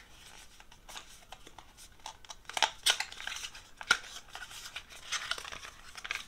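A small cardboard product box handled and opened by hand, its flaps pulled open: irregular light clicks and rustles of card.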